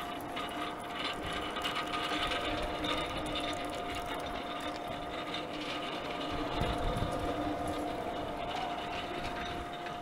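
Manual hand pallet jack rolling over rough asphalt, its wheels and steel forks rattling and clattering steadily.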